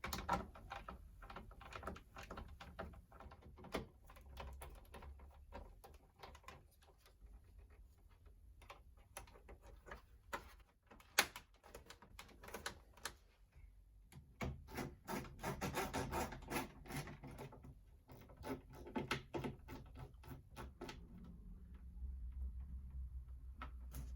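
Hands working on a Packard Bell all-in-one PC's plastic case: irregular clicks, taps and rattles as parts are fitted and screws put back in. The clicks come thickest in a long cluster past the middle.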